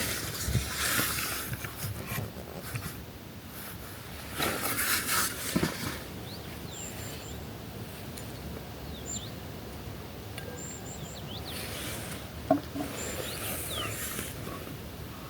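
A hiker's footsteps on a forest trail, a few crunching, rustling steps in the first half. Small birds call with short high chirps and quick falling whistles.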